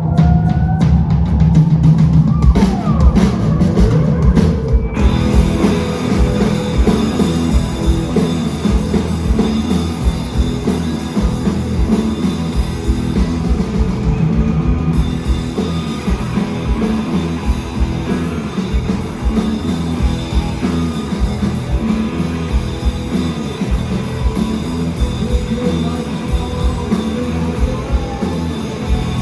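Live rock band playing loud, heavy music with pounding drums and guitars. About five seconds in, the full band crashes in over the drums.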